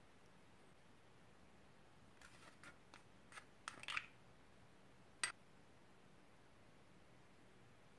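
Small plastic clicks and rubbing as a round green plastic lip balm container is handled and twisted open: a cluster of light clicks about two seconds in, then one sharp click about five seconds in, against near silence.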